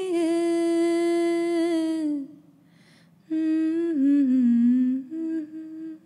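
A woman singing an Urdu ghazal unaccompanied, holding a long steady note for about two seconds. After a short pause she sings a second phrase that dips in pitch with ornamented turns and ends on a held note.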